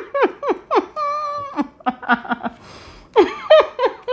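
Laughter: rapid giggling in short bursts, each falling in pitch, with one held note about a second in and a quick breath near the middle.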